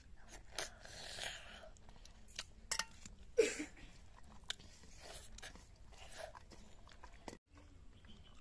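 A child biting and chewing a piece of fried fish close to the microphone, with small mouth clicks all through and one brief louder sound about three and a half seconds in.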